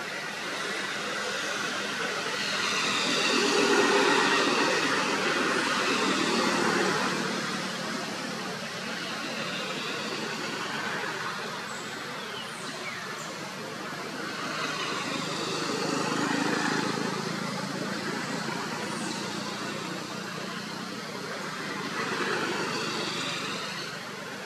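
Road traffic going by: vehicles passing one after another, each swelling and fading over a few seconds, the loudest about four seconds in. A few short, high, falling chirps are heard now and then.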